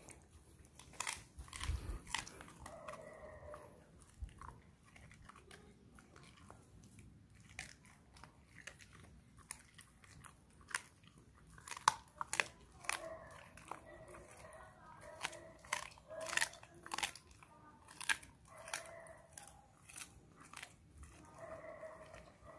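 German Shepherd chewing raw chicken, with irregular wet crunches and bites, some louder than others.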